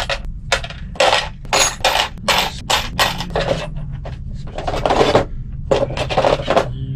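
Small metal washers and fasteners clinking and scraping as they are handled and dropped by hand into the plastic compartments of a parts organizer. The clinks come in a dense, irregular run.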